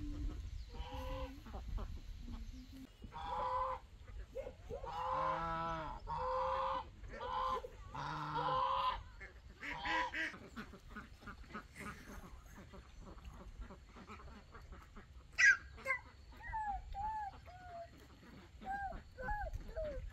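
Farm fowl calling: a run of loud, repeated calls through the first half, then softer, short, falling calls in the second half.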